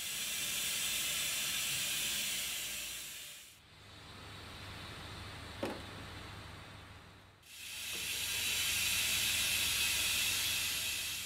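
A steady hiss, heard in two stretches of three to four seconds with a quieter low hum and one short chirp between them.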